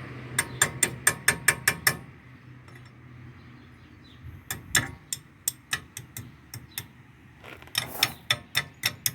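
Runs of sharp metallic clicks, about five a second, in three bursts: ratchet-like hand-tool work on a car's front wheel hub at the castle nut and cotter pin.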